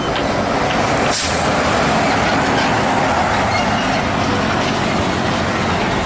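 Hino tanker truck driving past at road speed: steady engine and tyre noise, with a short hiss about a second in.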